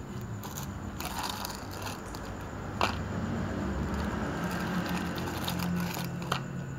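Cat crunching dry kibble with its head inside a cut-down plastic bottle, with irregular crunching and plastic clicking. A sharp knock of the bottle comes about three seconds in and another near the end.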